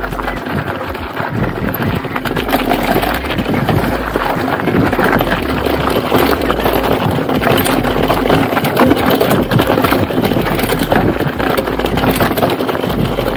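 Mountain bike riding fast down a rough dirt and stone trail: tyres crunching over gravel, the bike rattling and clattering over bumps, with wind buffeting the microphone.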